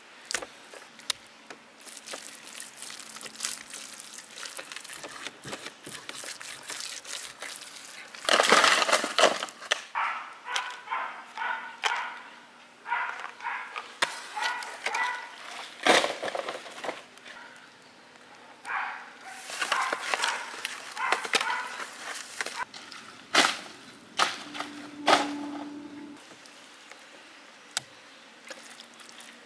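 Dry coconut husks and dried leaves crackling and crunching as they are handled, in irregular sharp cracks with louder, denser clusters about eight seconds in and again around twenty seconds.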